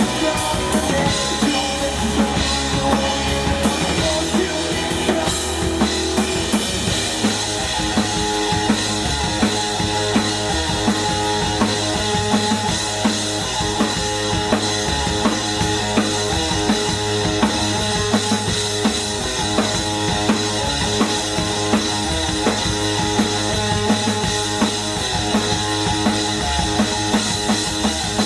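Rock band playing live, with the drum kit to the fore keeping a steady beat on kick, snare and cymbals over sustained bass and guitar.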